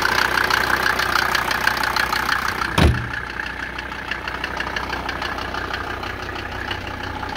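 Mercedes-Benz W124 250D Turbo's five-cylinder turbodiesel idling with an even diesel clatter, running smoothly. About three seconds in the bonnet slams shut with a single thump, and the engine then sounds duller through the closed bonnet.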